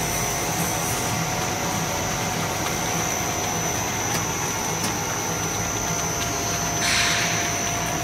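Snack-food extruder line running: a steady mechanical drone with a constant high-pitched whine. A brief rush of hiss comes about seven seconds in.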